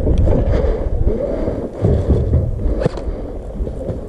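Low rumbling wind noise buffeting a body-worn camera's microphone, with rustling and a few sharp clicks.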